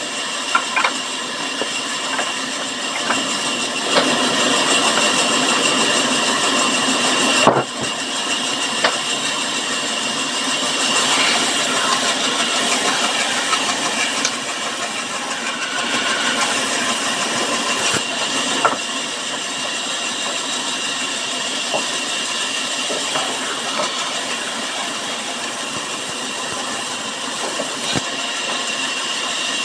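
Sawmill saw running steadily through wood, with a few sharp knocks. It grows louder about four seconds in and drops suddenly a few seconds later.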